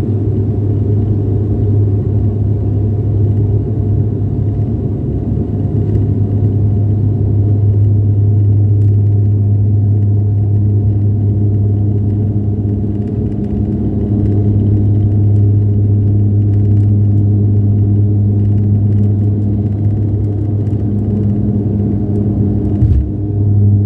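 Turboprop airliner's engines and propellers droning steadily, heard inside the cabin as the Dash 8 Q400 rolls along the runway, with a strong low hum.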